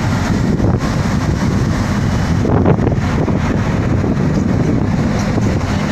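Steady rumble of a boat under way, with wind buffeting the microphone.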